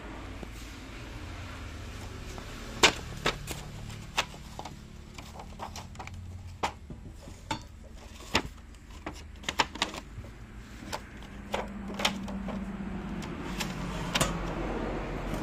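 Irregular light clicks and knocks, about two dozen, starting about three seconds in, the first the loudest, over a steady low rumble.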